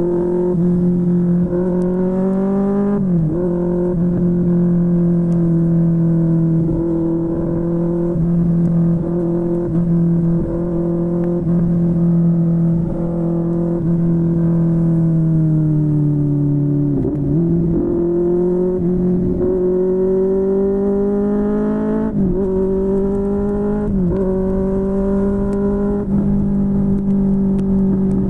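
QJMotor SRK600 inline-four motorcycle engine running through a Yoshimura R11 exhaust while riding. The engine note holds mostly steady, dipping briefly in pitch a few times, and sags around the middle before climbing back up.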